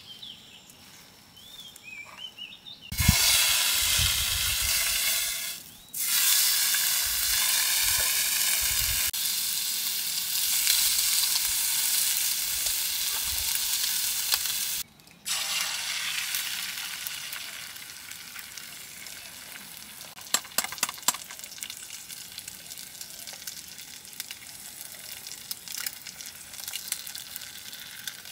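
Bacon frying in a small camping frying pan. A loud sizzle starts about three seconds in, drops out briefly twice, then settles to a quieter sizzle with scattered crackling pops.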